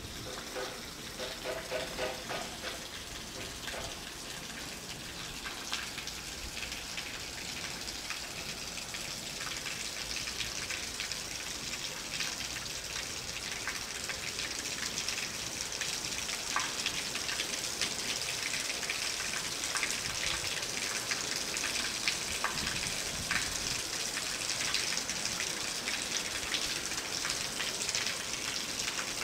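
Electric train rolling slowly past close by: a steady hiss of wheels on rails, thick with fine crackling clicks, that grows gradually louder. A short pitched whine comes about a second in.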